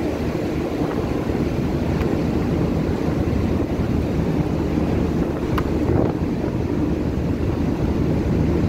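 Gale-force wind buffeting the microphone on an open ship's deck: a loud, steady low rumble with sea noise underneath.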